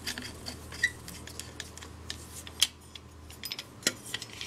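Light, irregular metallic clicks and taps from a folding steel shovel being handled, its steel parts knocking together, with a couple of sharper clicks in the second half.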